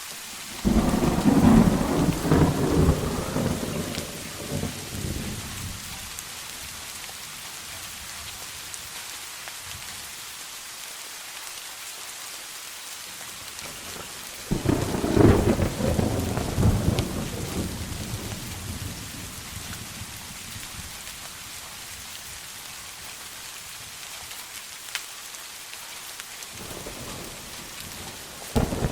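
Steady rain with rolling thunder. A long rumble breaks in about half a second in and fades over several seconds, a second comes about halfway through, and a third begins right at the end.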